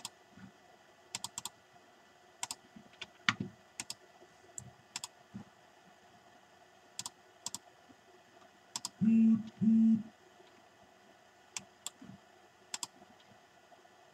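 Scattered clicks of a computer mouse and keyboard, single and in quick pairs, as paragraphs and text styles are picked in a word processor. About nine seconds in come two short low hums, one right after the other.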